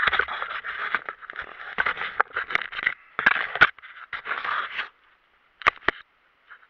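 Handling noise on an action camera in a waterproof case: muffled scraping and rustling in choppy bursts, stopping about five seconds in, followed by two sharp clicks.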